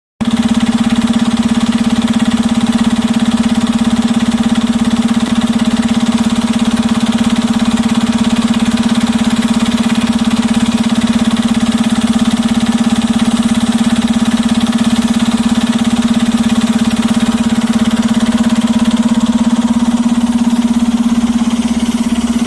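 Heavy machine engine running steadily at constant speed, a loud even hum with a regular low throb about two or three times a second.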